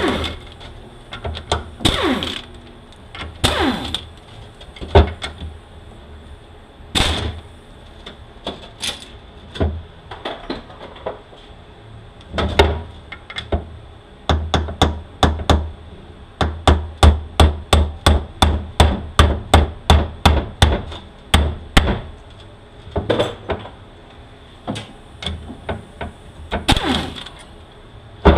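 Pump bolts on a 46RE (A518) automatic transmission being run out with a ratchet: scattered bursts of tool noise, then a long run of sharp, evenly spaced clicks at about three a second through the middle.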